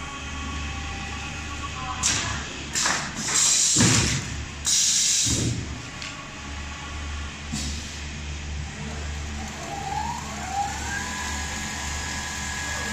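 Automatic industrial sewing machine running: a steady motor hum with several short loud rushing bursts between about two and five seconds in, then a whine that rises near the end and levels off into a steady high tone as a motor spins up.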